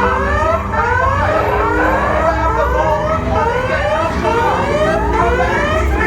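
Several whooping alarm sirens sounding at once, each repeatedly sweeping up in pitch about twice a second, over a steady low rumble: the ride's alarm for the raptor containment area.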